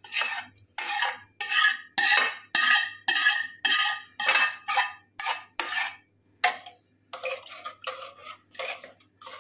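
A spoon scraping round a cooking pot as a tadka is stirred into boiled black chickpeas: quick rasping strokes about two a second. They pause briefly about six seconds in, then go on more lightly.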